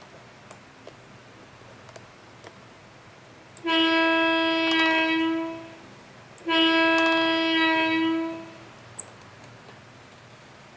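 Train horn sound effect from a TOMYTEC JNR 101 series cab-style N-gauge sound controller, sounded twice: two steady horn blasts of about two seconds each with a short gap between them. A sharp click follows near the end.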